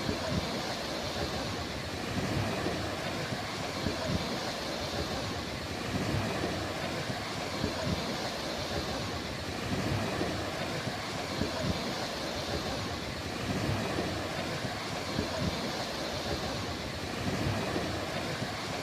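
Sea waves washing onto a beach: a steady rushing hiss that swells and eases about every four seconds, over a gusty low rumble.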